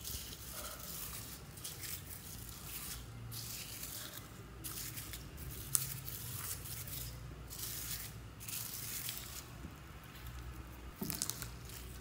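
Foam beads crackling and rustling under a hand that presses and spreads them over slime in a glass bowl, in irregular bursts, with one sharp click about halfway through.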